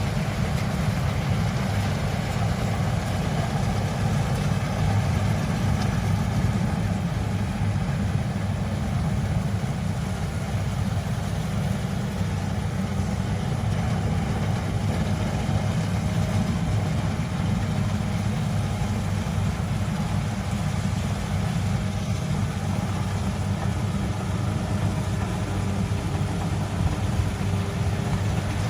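A combine harvester's engine running steadily, a low, even engine sound that does not rise or fall.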